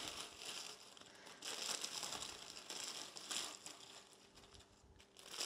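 Crackers and their plastic sleeve crinkling and crackling as they are handled into a stone mortar, in a few uneven spells that die down near the end.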